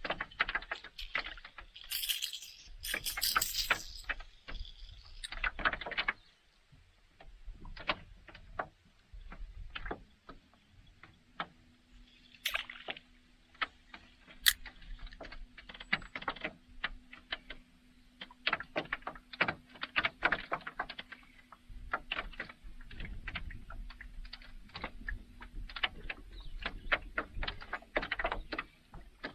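Fishing gear rattling, clicking and knocking in a small boat, with a louder clatter in the first few seconds. A faint steady hum runs through the middle.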